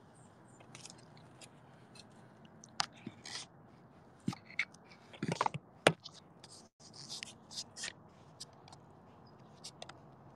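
Handling noise from a phone being picked up and repositioned: scattered scrapes, clicks and light knocks of fingers and the phone against nearby surfaces, loudest in a cluster of knocks about five to six seconds in.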